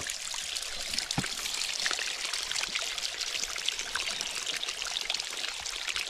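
Water running and splashing over rocks in a creek or small waterfall, a steady trickling rush full of small splashes.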